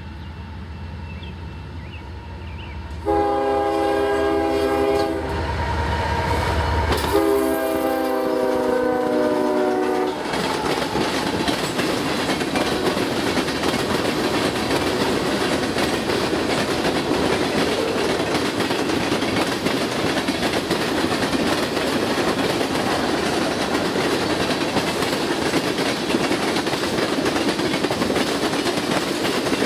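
Canadian Pacific freight train passing: the lead GE ES44AC diesel locomotive's rumble grows as it approaches, and its horn sounds two long blasts, about three seconds in and about seven seconds in. Then the covered hopper cars roll steadily past with a rushing clickety-clack of wheels on rail joints.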